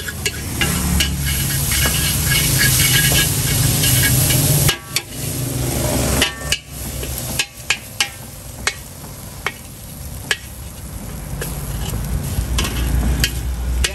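Mee goreng being stir-fried in a large black wok: a metal spatula scrapes and clanks against the wok over sizzling. The sizzle is loudest for the first few seconds, then drops back, with repeated sharp clanks as the noodles are tossed and scooped out.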